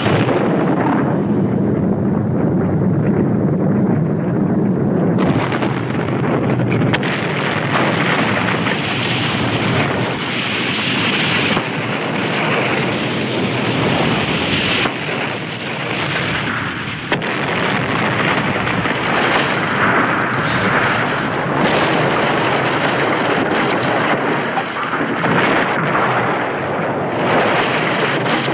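Volcanic eruption: a continuous loud roar and rumble, broken by repeated sudden explosive blasts.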